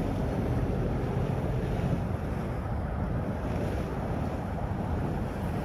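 Steady rush of water pouring from a dam spillway outlet and churning the pool, with wind buffeting the microphone.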